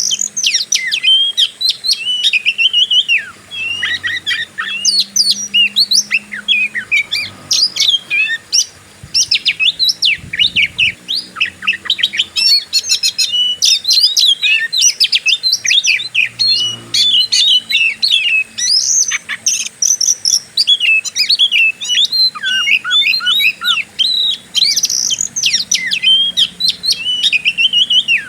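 Oriental magpie-robin (kacer) singing in the aggressive 'fighter' style used to provoke other males: a loud, fast, unbroken run of varied chirps, whistles and quick slurred notes with hardly a pause.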